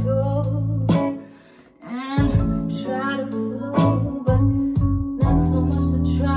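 A woman singing a freestyle vocal over a recorded backing beat with deep held bass notes. The music drops out briefly about a second in, then comes back.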